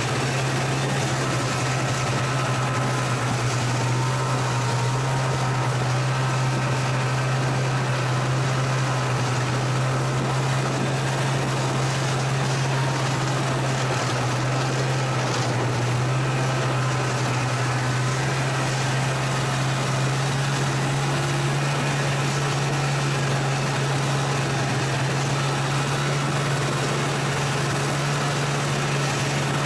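Two-stroke snowmobile engine running at a steady cruising speed, its note holding steady under a constant rushing noise from the ride.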